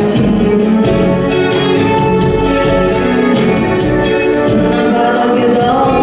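A slow pop ballad played live: a woman singing over a backing band.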